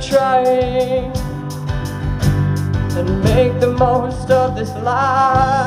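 A male vocalist singing live over acoustic guitar, amplified through large PA speakers, with a steady beat under the held, wavering sung notes.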